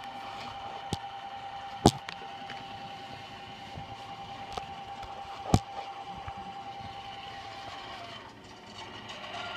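Computer speakers putting out a steady whine with a fast, even pulsing, like a car that won't start, while no audio is playing: a fault noise coming from the computer or speakers. Sharp clicks cut in about two and five and a half seconds in. The tone drops out near the end and comes back changed.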